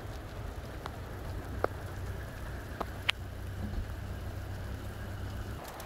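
Onset of a hail shower: a steady hiss of rain with a handful of scattered sharp ticks of stones landing, over a low wind rumble on the microphone.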